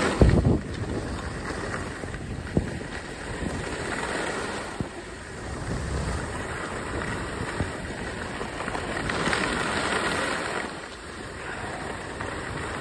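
Rushing wind on a phone's microphone mixed with skis sliding over groomed snow while skiing downhill. The noise swells and fades every few seconds, with a few sharp knocks in the first second.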